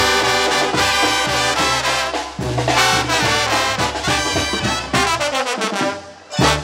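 Live Mexican banda with harp: trumpets, trombones and sousaphone playing an instrumental brass passage, with clarinets behind. Near the end the music thins out briefly, then comes back with a loud hit.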